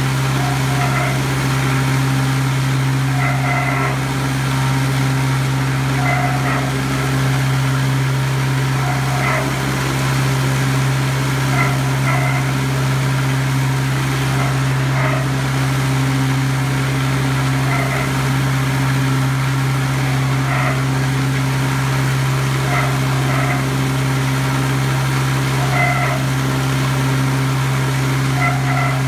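Meat bowl cutter running steadily, its knives chopping liverwurst mass in the turning bowl, a constant deep hum with short higher sounds recurring every one to three seconds.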